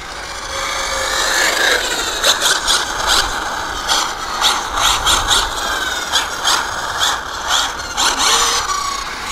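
ZD Racing 08425 1/8 buggy's brushless motor driven flat out on a 4S battery: a high whine that rises as the buggy accelerates, then holds, with repeated short rasping bursts over it.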